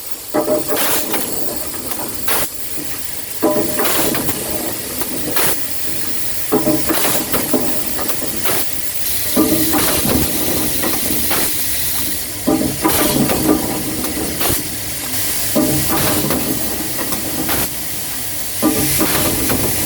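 Automatic espagnolette assembly machine running through its cycle: pneumatic actuators clack and hiss in a cluster of sharp strokes about every three seconds, over a steady high hiss and the hum of the feeders.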